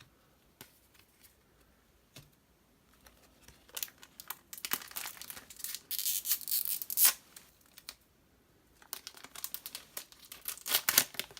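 A trading-card booster pack wrapper being torn open and crinkled, starting a few seconds in, with a sharp snap near the middle. After a short pause, quick lighter crinkles and clicks as the cards are handled.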